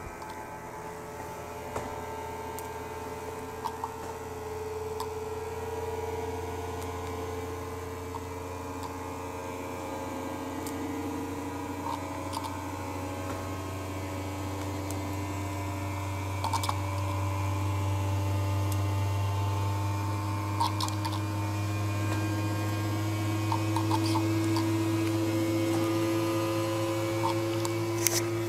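Van de Graaff generator running: a steady motor hum with several slowly drifting tones that grows somewhat louder after about halfway, with occasional short clicks.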